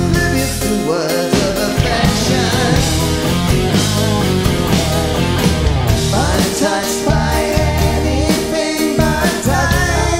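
Live rock band playing at full volume, with drum kit, bass guitar and keyboards.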